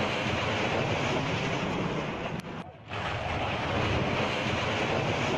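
Loud, steady rushing noise, like wind buffeting a phone's microphone, with a short drop about two and a half seconds in.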